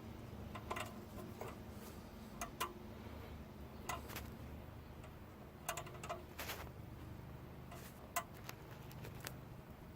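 Faint, irregular small clicks and light taps, about a dozen spread unevenly, from hands working the standby generator's oil drain valve and hose fitting, over a low steady hum.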